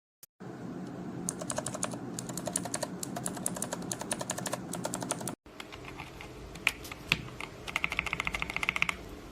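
Typing on a mechanical keyboard fitted with Outemu switches: rapid keystroke clicks. The sound cuts out briefly about five seconds in, and a quicker run of keystrokes comes near the end.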